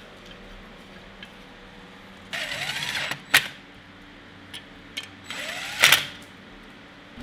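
Cordless driver with a socket extension spinning down the cylinder-head bolts on a Briggs & Stratton 5 hp flathead engine. Two short runs of under a second each, the motor pitch rising and falling, each ending with a sharp click. Small clicks of bolts being handled come between them.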